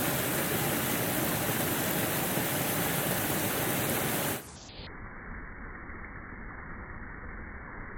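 Waterfall rushing as a steady, loud wash of noise. About four seconds in it drops suddenly to a quieter, muffled low rush.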